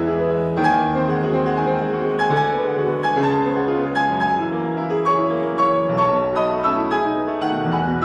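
Background piano music: struck notes at about two a second over sustained low bass notes.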